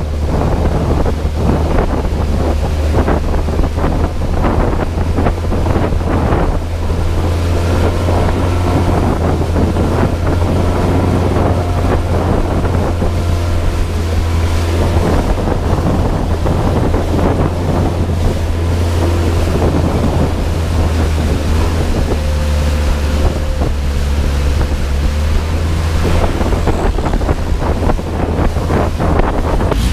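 Motorboat engine running with a steady low drone while the boat travels along a canal, with wind noise on the microphone.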